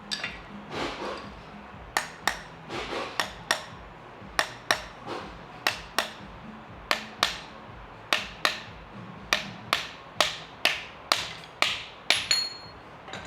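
Hammer strikes on metal during a coilover suspension install, about two dozen sharp blows at an uneven pace of roughly two a second. A brief metallic ring is heard near the end.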